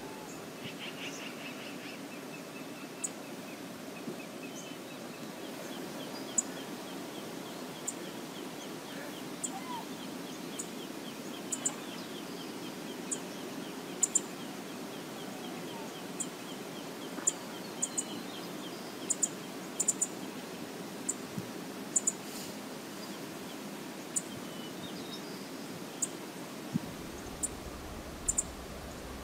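Outdoor wind-and-water ambience: a steady rush of wind and choppy lake water, with faint bird calls and scattered short, sharp high ticks.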